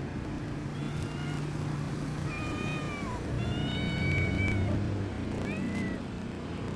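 Kittens mewing: about four high, thin mews a second or so apart, one of them falling in pitch at its end, over a steady low hum.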